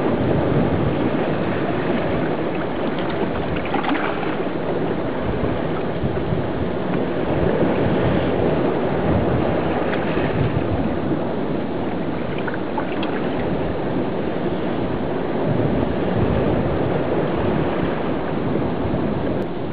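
Steady rushing of surf and moving water, muffled as heard through a camera held underwater in a rock pool.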